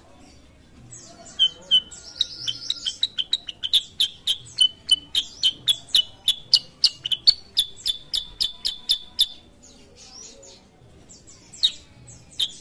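Black-headed bulbul (kutilang sutra) singing: a fast run of short, sharp repeated chirps at about four a second. The notes start about a second in, break off a little after the middle, and start again near the end.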